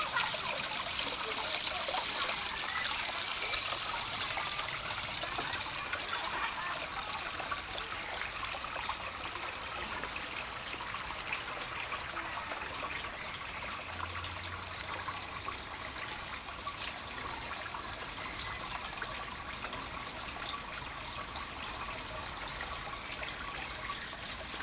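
Water trickling and splashing steadily into a garden koi pond from its waterfall, easing slightly after the first few seconds. Two brief ticks come about a second and a half apart past the middle.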